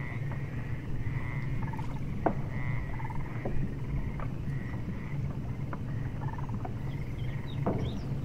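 Steady low drone of a ship's engine, heard from the deck. Over it comes a short repeated chirping call roughly once a second, with scattered clicks.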